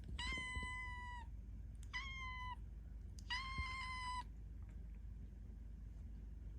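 Kitten meowing three times: high, drawn-out calls of steady pitch, the middle one shorter. These are a hungry kitten's calls for food.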